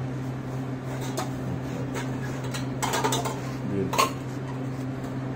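Steady low hum with a few light clinks and knocks scattered through it, the sharpest about four seconds in.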